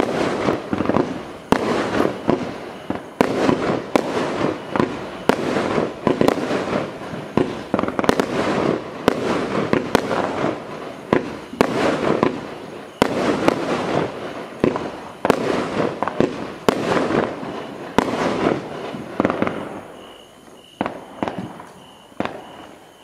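Celtic Fireworks Ritzy Glitzy 16-shot 25 mm barrage cake firing: a steady run of shots about one a second, each a sharp bang with a wash of crackle and hiss between them. After about twenty seconds it dies away to a few scattered pops.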